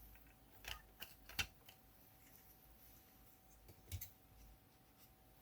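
Faint clicks and light knocks of a bench multimeter's front-panel parts being handled during disassembly: a quick cluster about a second in, and another near four seconds, over a faint steady hum.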